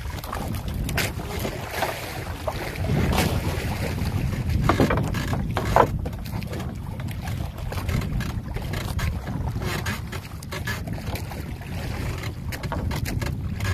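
Wind buffeting the microphone over water sloshing against a small bamboo-outrigger fishing boat, with scattered knocks and splashes.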